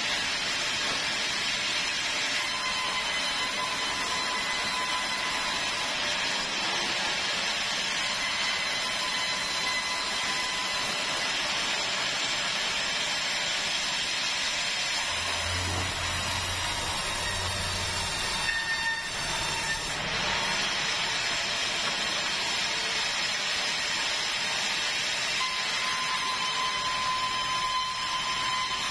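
Sawmill saw running and cutting through a keruing log: a steady hiss with a faint high whine that comes and goes, and a low hum for a few seconds about halfway through.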